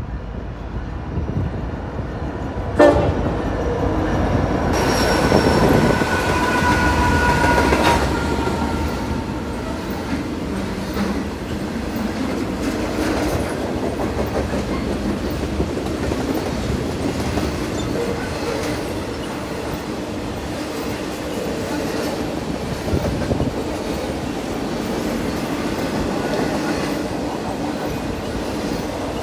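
Norfolk Southern intermodal freight train passing: a sharp bang about three seconds in, then the lead diesel locomotives go by with a high tone that falls slightly in pitch, followed by the steady rumble and clickety-clack of the container well cars.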